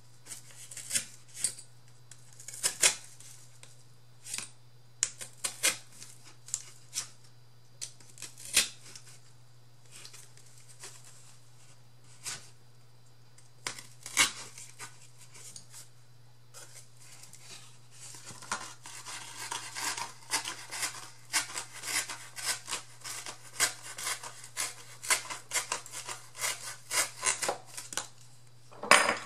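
Scissors snipping paper: scattered single cuts at first, then a quicker run of snips from about two-thirds of the way in, over a steady low hum.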